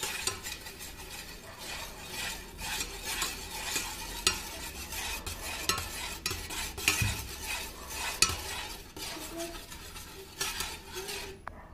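Steel spoon stirring water in a stainless steel pot, scraping and clinking against the bottom and sides over and over as sugar is dissolved. The stirring stops just before the end.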